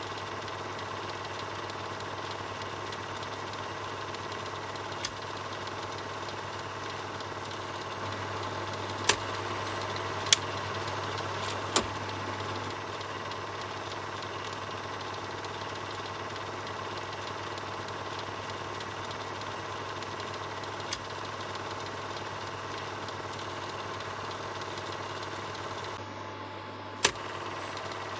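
Film projector running with a steady mechanical whir and a low hum, broken by a few sharp clicks: one about five seconds in, three in quick succession a little before halfway, and two more later on.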